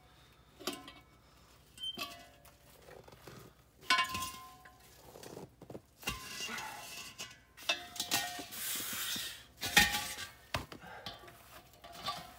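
Irregular metal clinks and knocks of a wrench and the regulator's brass hose fitting against propane cylinder valves, as the gas line is unscrewed from one cylinder and fitted to another. Light plucked-string music plays underneath.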